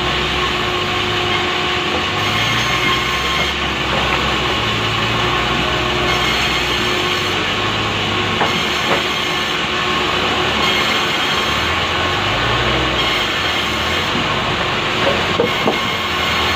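Engine-driven saw running steadily under load as it rips lengthwise through a large pulai log, its engine note shifting slightly with the cut. A few sharp ticks near the end.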